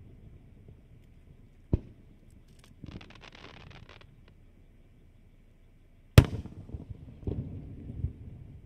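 Aerial fireworks bursting. A sharp bang comes a little under two seconds in, then a crackling hiss lasting about a second. The loudest bang comes about six seconds in, followed by two smaller booms.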